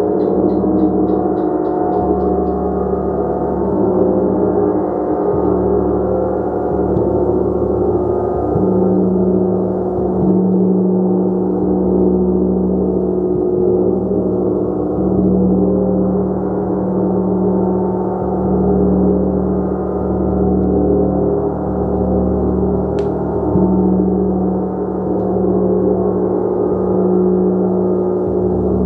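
Gong played continuously: a dense, steady wash of many overlapping sustained tones, with the low hum slowly swelling and shifting.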